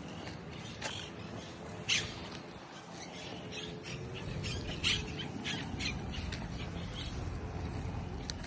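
Birds calling: a run of short calls, the two loudest about two and five seconds in, over a low steady rumble.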